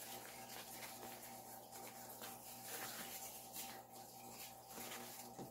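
Faint rustling of a grey ironing-board-fabric cover being handled by hand, over a faint steady hum.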